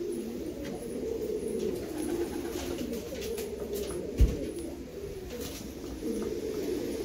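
Domestic pigeon cooing over and over, the cock's courtship coo as he struts after a hen with puffed neck and fanned tail. A single dull low thump about four seconds in.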